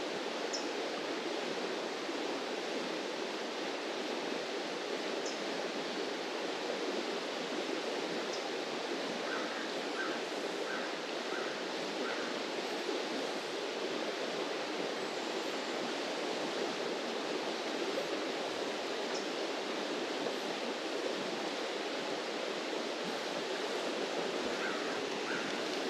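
Steady rush of flowing creek water, even throughout. A short run of five faint chirps comes about ten seconds in.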